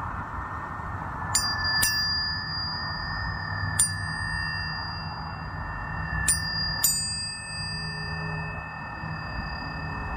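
Tuning forks struck five times, as two quick pairs with a single strike between. Each strike is a sharp tap followed by a pure, high tone, and several pitches keep ringing together throughout.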